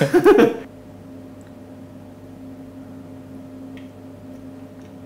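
A laughing remark that cuts off under a second in, then a steady low hum of room tone with a few faint clicks.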